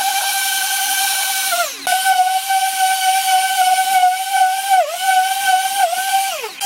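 High-speed electric power tool whining at a steady pitch, dipping briefly twice as it bites, and spinning down and back up twice, a little under two seconds in and again at the end.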